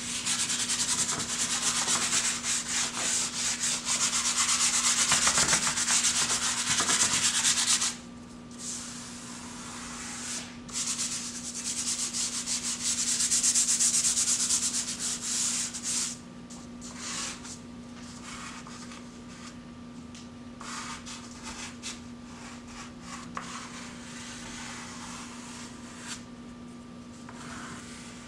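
Soft pastel stick scrubbing back and forth on brown paper: a long stretch of steady rubbing, a short break about eight seconds in, another stretch, then quieter, scattered strokes from about sixteen seconds on.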